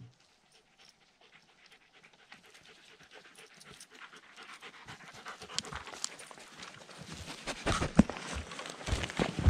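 German shepherd dog panting, growing louder as it comes up close, with quick footfalls on the path.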